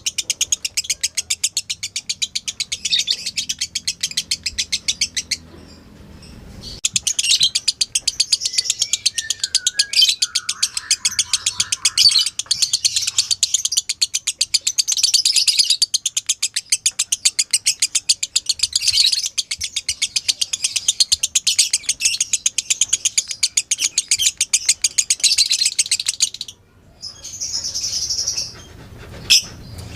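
Lovebird's long 'ngekek' chatter: a rapid, unbroken run of high, harsh chirps that stops briefly about five seconds in and again near the end, with a short lower warble about ten seconds in.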